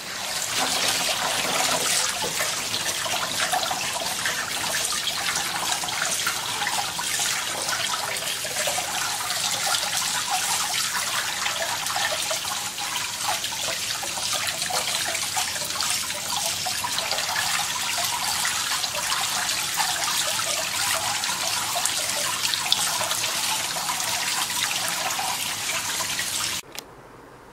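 Kitchen faucet running onto cooked noodles in a stainless-steel colander as they are rinsed by hand in cold water, a steady splashing of water. It stops abruptly near the end.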